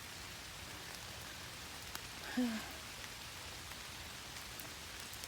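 Steady rain falling, an even hiss, with a short murmur from a woman about two and a half seconds in.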